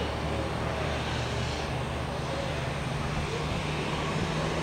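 Cessna 208B Super Cargomaster's single turboprop engine at takeoff power during the takeoff roll, heard from across the airfield as a steady drone with a low hum.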